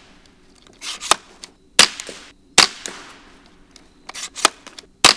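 Shots from a Fletcher Rifle Works Open Top Takedown .22 rimfire semi-automatic rifle (Ruger 10/22 pattern). There are two sharp reports close together about two seconds in and another near the end, with fainter clicks between them.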